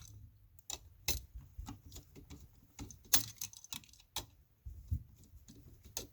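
Irregular light clicks and taps of a screwdriver and metal parts on an electrical outlet as the ground-wire screw is worked loose, with the sharpest clicks about three and four seconds in.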